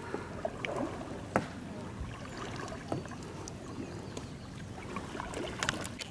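Kayak paddling on calm water: faint dips, drips and small splashes from the paddle, with a few light knocks on the hull, the plainest about a second and a half in and near the end.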